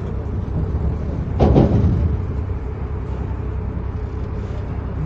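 Tour boat's engine idling with a steady low rumble, and a single loud thump about one and a half seconds in.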